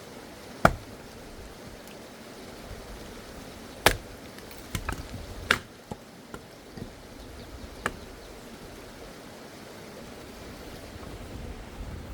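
Axe strikes splitting pine firewood: several sharp, separate blows a few seconds apart. The pine splits poorly.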